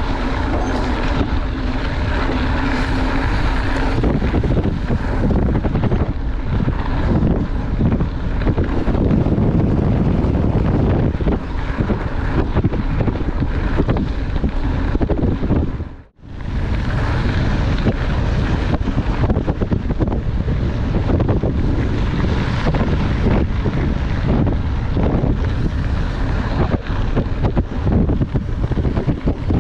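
Wind buffeting the microphone over the tyre rumble of a mountain bike rolling fast on a gravel road, with the bike rattling over loose stones. The sound drops out briefly about sixteen seconds in.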